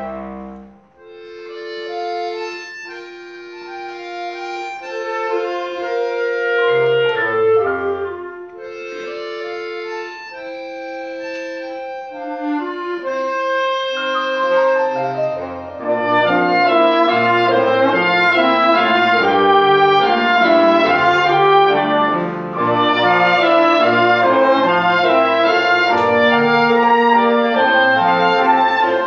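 Live instrumental ensemble music of long, held notes. It opens soft and sparse with a few lines, then swells into a fuller, louder passage about halfway through.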